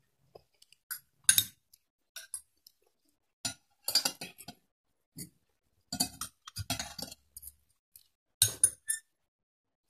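Metal spoon and fork clinking and scraping against a plate in short scattered clusters, with chewing between.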